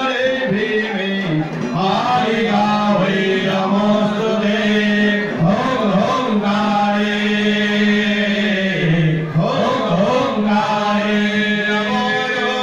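A man's voice chanting mantras in long, held notes, gliding from one pitch to the next between the held tones.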